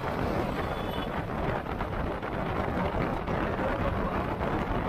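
Steady wind rush over the microphone of an action camera on a moving motorcycle, with the motorcycle's engine and road noise underneath.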